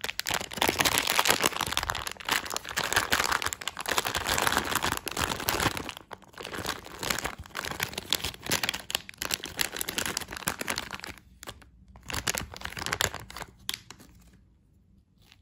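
Plastic Haribo gummy-worm bag crinkling as it is handled and emptied of its gummy worms. The crinkling is dense at first, breaks off a few times from about two-thirds of the way in, and stops shortly before the end.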